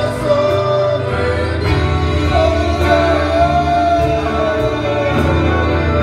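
Spanish-language worship song: voices holding long sung notes over a band with bass and a steady beat of cymbal strokes.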